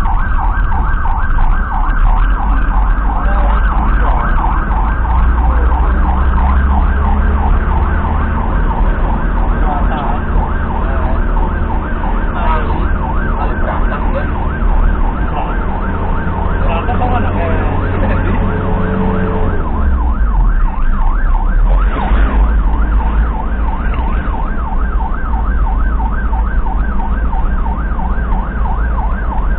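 Ambulance siren sounding a fast warbling yelp, heard from inside the moving ambulance over its engine. The engine's pitch climbs for several seconds, then falls away about two-thirds of the way through.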